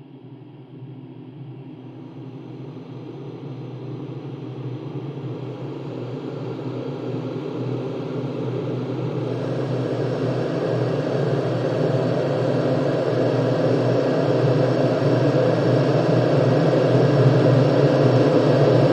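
Slowly rising scary, dramatic sound effect: a low rumbling drone with a steady low hum underneath that swells steadily louder, gaining a higher hiss about halfway through.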